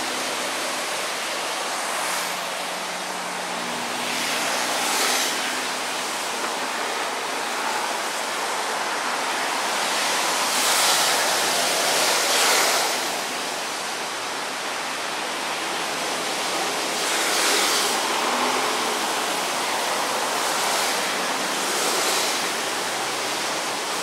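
Water rushing over a weir: a steady hiss with several louder swells, each about a second long.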